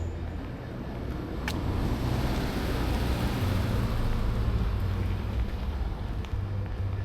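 A car passing along the street, its tyre and engine noise swelling to a peak a few seconds in and then fading away, over a steady low rumble.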